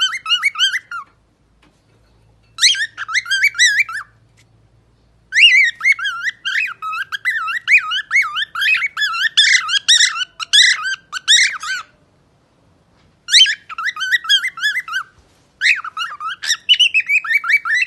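Pet parrot singing in fast, wavering warbled phrases, in several bursts with short pauses; the longest runs for about seven seconds in the middle.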